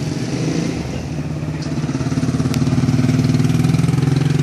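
A vehicle engine running steadily, growing louder about two seconds in and then holding.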